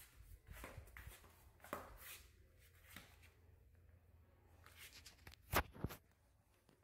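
Faint clicking and scuffling of a Shih Tzu puppy's paws on a tile floor, with two sharp knocks close together about five and a half seconds in.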